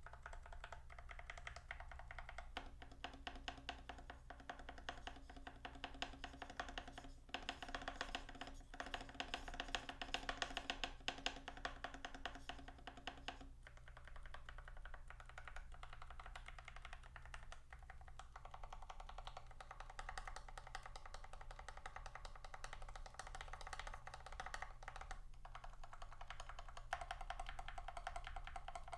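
Continuous fast typing on an IQUNIX OG80 Wormhole mechanical keyboard with freshly lubed switches: a dense stream of key clacks with a few brief pauses. Background music plays underneath.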